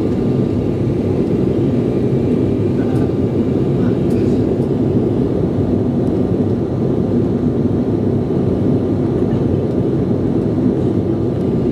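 Steady roar inside the cabin of a twin-engine jet airliner climbing after takeoff: engine and airflow noise heard from a window seat, with a faint steady whine above it.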